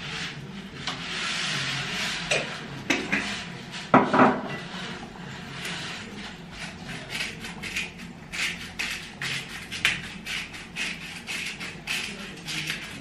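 A spatula stirring and scraping food in a frying pan, a quick run of scrapes and light knocks that grows denser in the second half.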